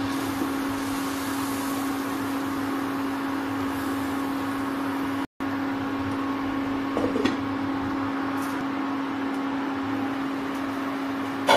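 Steady hum of an induction cooktop's fan and coil under a kadai of simmering vermicelli. Near the end a glass lid clanks onto the pan.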